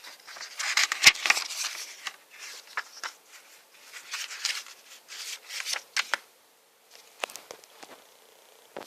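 Packaging being handled: crinkling and rustling in stretches, followed by a few sharp clicks near the end.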